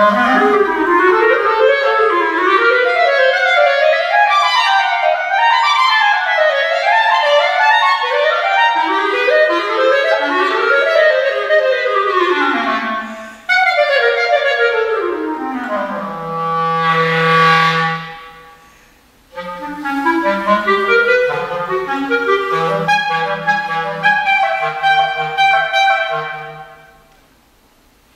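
Clarinet playing fast runs that swoop up and down, then gliding down into a long low held note. After a brief pause it plays shorter repeated figures that fade away near the end.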